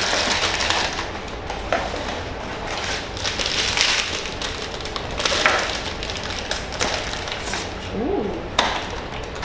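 Cardboard blind boxes and their packaging being handled and opened by hand: rustling and crinkling with scattered light taps and knocks.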